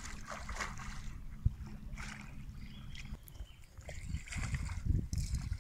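Water splashing and sloshing beside a float tube as a hooked wels catfish is fought at the surface, in irregular patches, with one sharp knock about a second and a half in. A steady low wind rumble on the microphone runs underneath.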